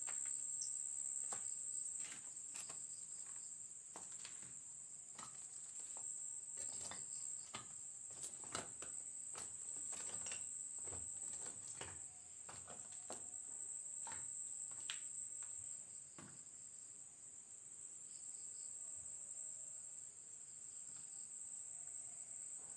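Crickets chirring in a steady high-pitched chorus, with irregular light clicks and knocks through the first two-thirds that fade out after about sixteen seconds.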